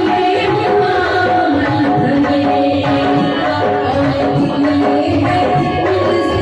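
Bhajan music: tabla drumming under held melodic notes, playing steadily without a break.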